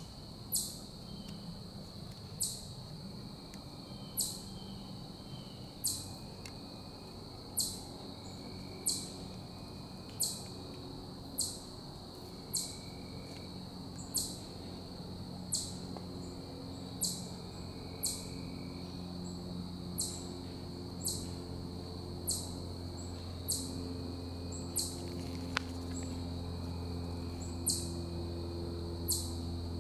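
Woodland insects trilling in a steady high drone, over which a sharp high chirp repeats about every one to two seconds. A faint low hum grows louder in the second half.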